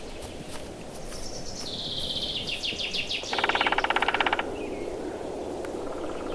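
A woodpecker drumming on a tree: one rapid, even roll of knocks lasting about a second, a little past the middle. Before it a small songbird sings a quick run of high notes that steps down in pitch, over a steady background hiss.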